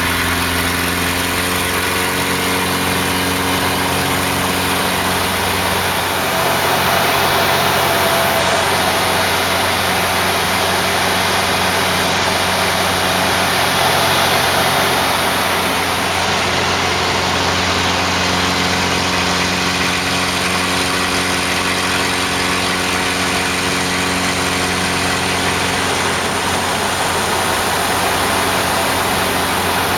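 Piston engine of a Laser 230 aerobatic monoplane heard from inside the cockpit, running with a steady drone under rushing wind noise. About six seconds in, the wind noise swells and the engine note wavers for roughly ten seconds, then it settles back to an even drone.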